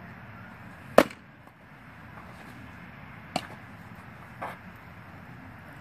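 A pitched baseball pops loudly into a catcher's mitt about a second in, followed by two much softer knocks a few seconds later.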